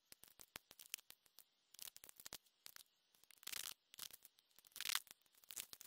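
Faint, irregular ticking of freezing rain pellets, several small ticks a second, with two brief rustling scrapes, about three and a half and five seconds in.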